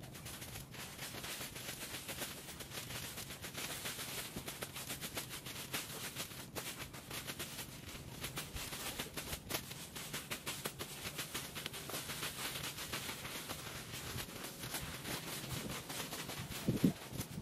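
Rapid, irregular rustling and crackling of brush and dry leaves being cleared, with a louder thump near the end.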